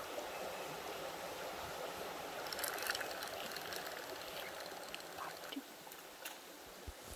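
Creek water running steadily, growing fainter after about five seconds, with a few faint clicks.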